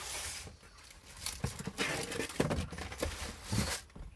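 Packaging being handled: irregular rustling with a few sharp knocks and taps.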